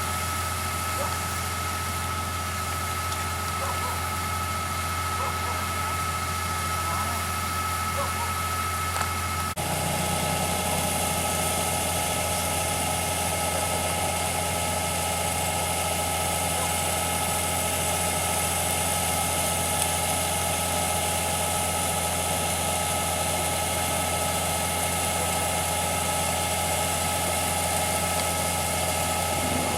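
Corn harvester's engine and machinery running steadily. The sound changes abruptly about a third of the way in and is a little louder and hissier afterwards.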